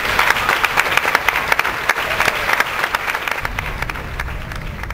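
Audience applauding, a dense patter of many hands clapping that thins out and fades over the last second or so.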